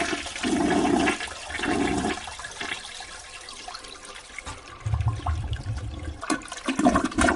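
Water rushing and gurgling in uneven surges, heard as a sound effect: three gurgles in the first two seconds, a quieter lull, then a deeper surge about five seconds in and more gurgling near the end.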